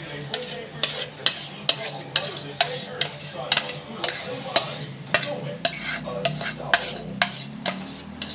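Metal spoon scraping creamy dressing out of a bowl, clinking against the bowl's side about twice a second.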